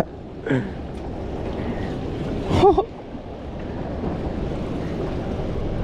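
Wind rushing over the microphone and water sloshing against a small drifting boat, with two short wordless vocal exclamations, the louder one about two and a half seconds in.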